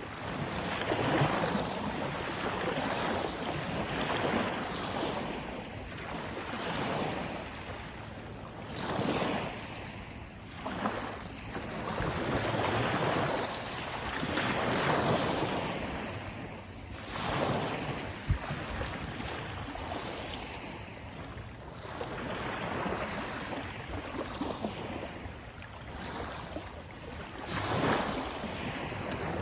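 Sea waves washing in and drawing back, swelling and fading every few seconds, with one sharp knock about eighteen seconds in.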